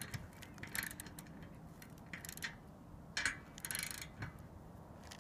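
Ratcheting torque wrench clicking in a series of short bursts as its handle is swung back and forth, tightening a solar racking bolt.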